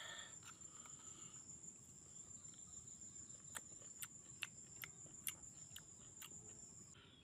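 An insect's steady, high-pitched trill that stops near the end, over a quiet background. In the second half there is a run of light clicks, about two a second.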